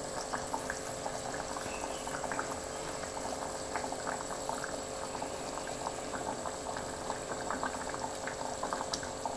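Chicken curry simmering in a pot, the thin gravy bubbling with a steady run of small pops.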